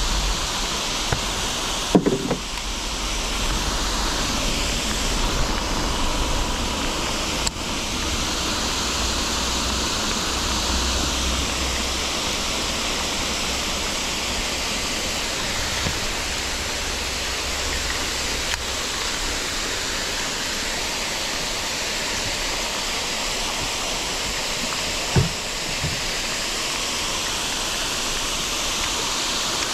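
Heavy rain pouring steadily onto the lake surface, with the rushing of a nearby waterfall, a constant hiss without a break. A couple of brief soft knocks, about two seconds in and near the end.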